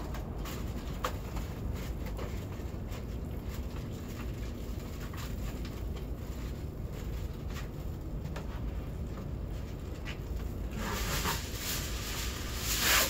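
Aluminum foil being handled and folded into a tray: faint crinkles and taps over a steady low background rumble, then louder crinkling of a sheet of foil starting about eleven seconds in and loudest near the end.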